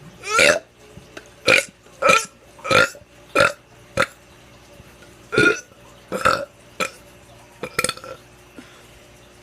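A teenager burping over and over: about ten short burps in a row, each under half a second, coming roughly once a second or faster.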